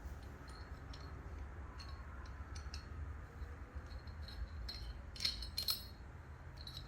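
Small metallic clinks and clicks of nuts and steel mounting hardware being handled and threaded onto bolts, with a couple of sharper clinks about five seconds in.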